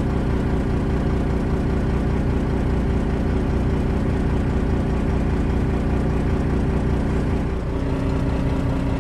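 A heavy engine idling steadily, with a low, layered hum. Near the end a new steady tone joins it, as if the engine's note shifts.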